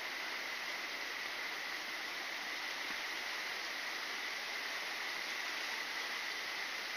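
Steady rushing of a rainforest stream, an even hiss with no change, with a continuous thin high-pitched drone on top.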